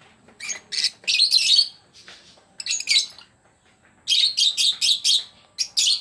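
Lovebirds giving high-pitched, chattering squawks in repeated bursts, each cluster lasting up to about a second, with short pauses between them.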